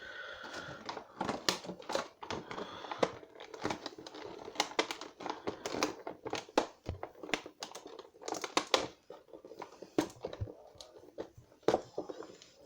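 Plastic action-figure packaging crinkling and crackling in irregular clicks as it is handled and worked open.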